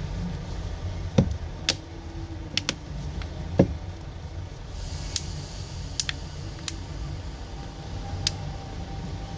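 Sharp, irregular clicks and taps of a Xiaomi Redmi 9A's casing being handled and pressed together, about nine in all, over a steady low hum.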